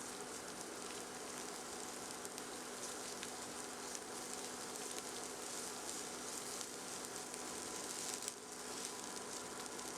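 Diced shallot sautéing in a pan: a steady, quiet sizzle with fine crackling, dipping briefly about eight seconds in.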